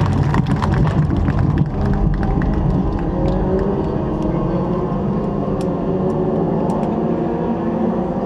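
Marching band playing its field show: rapid drum strikes for the first couple of seconds, then the winds hold sustained chords with a few light percussion taps.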